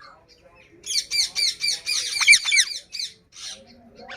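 Pet parrot chattering: a quick run of high chirping calls, about eight to ten a second, lasting some two seconds, followed by a short harsh call.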